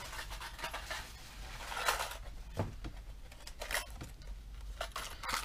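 Plastic blister packs of treble hooks being rummaged for and handled: rustling of packaging with scattered light clicks, a louder rustle about two seconds in and a sharp click at the end.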